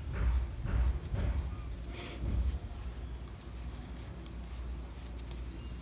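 Soft rustling and small bumps of hands working a 1.75 mm metal crochet hook and thread close to the microphone, in a few irregular bursts over the first two and a half seconds, then quieter.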